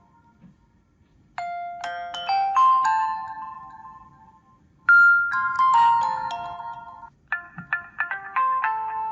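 T-Mobile HD2 phone ringtone playing: a chiming melody of bell-like notes that starts about a second and a half in and goes in short phrases with brief pauses between them.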